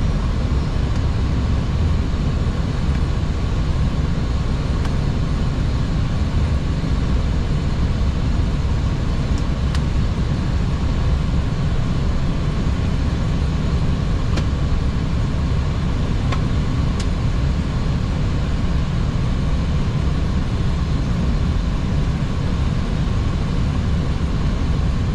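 Steady flight-deck noise of an Airbus A320: a low rumble under an even airflow hiss, with a faint steady tone and a few faint clicks.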